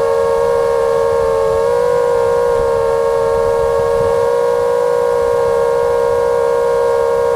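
Brushless motors and three-blade props of a 5-inch FPV quadcopter (T-Motor F60 Pro II 2207 2500Kv) whining at a steady cruising throttle. The pitch dips briefly about a second and a half in, then returns.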